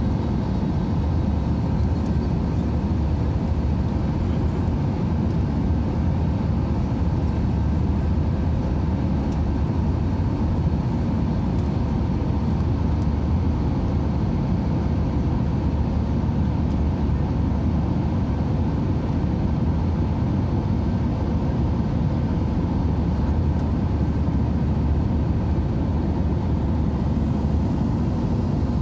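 Steady cabin noise of a jet airliner after take-off, heard from a window seat: the low drone of its wing-mounted turbofan engines and the rush of air over the fuselage, with a few faint steady whining tones above the rumble.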